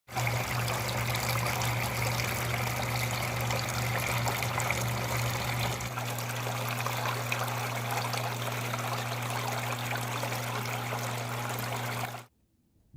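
Water trickling and splashing from a small home-made waterfall fountain, with a steady low hum underneath. It cuts off suddenly about 12 seconds in.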